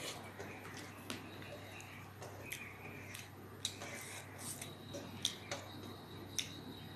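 Eating by hand from a steel plate: fingers mixing rice and dal make soft wet squishing with scattered sharp clicks against the metal, along with chewing.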